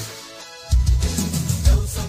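Background music with a heavy bass beat. It drops away briefly just after the start and comes back in about three quarters of a second in.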